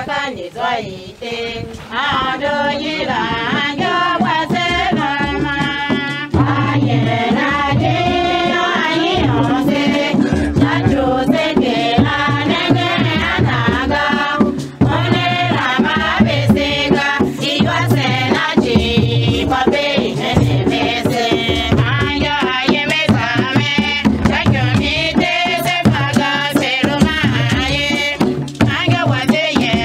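A group of voices singing together, with a steady drum beat that comes in about six seconds in and carries on under the singing.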